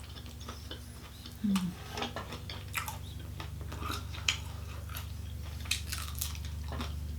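Close-up eating sounds of chicken wings being bitten and chewed: scattered wet smacks and small crunchy clicks, with a steady low hum underneath.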